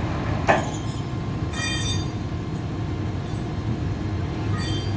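Flatbed tow truck running steadily with a low rumble. A short burst of noise comes about half a second in, and brief high-pitched metallic squeals come about a second and a half in and again near the end.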